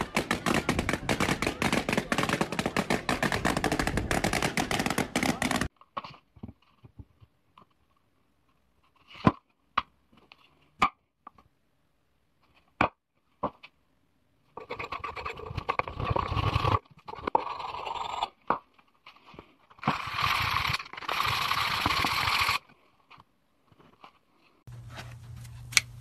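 A long row of balloons bursting in very rapid succession, a dense crackle of pops that stops abruptly about six seconds in. Scattered single clicks and two short noisy stretches follow, and a steady low hum begins near the end.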